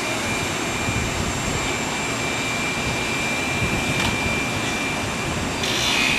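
Marine travel lift boat hoist running as it carries a hauled-out catamaran: a steady machine drone and hiss with a thin, steady high whine. It gets louder and brighter near the end.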